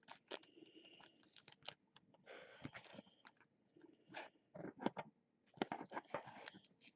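Plastic card protectors being handled: faint crinkles, taps and clicks of plastic and cards, scattered irregularly with short rustles.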